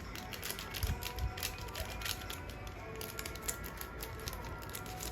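Irregular light clicks and taps from handling food and utensils during preparation, over faint background music.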